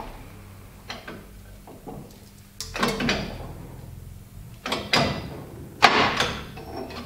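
Beta 3027-10 hydraulic workshop press being worked to push the crank assembly out of a Brose S e-bike motor's alloy casing: a few light metal clicks, then three loud metallic clunks, each with a short scraping tail, a second or two apart.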